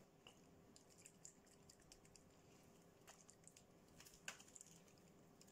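Near silence with faint, scattered small handling clicks, one a little louder about four seconds in.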